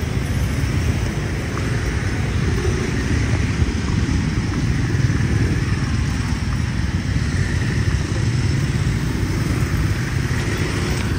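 Street traffic with motorbikes: a steady rumble of engines and road noise, with no single vehicle standing out.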